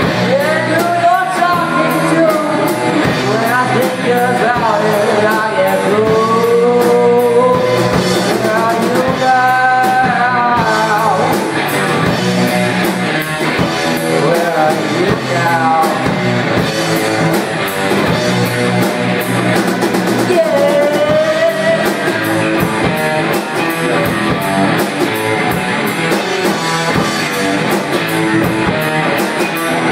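Live rock band playing electric guitars over a drum kit, loud and continuous.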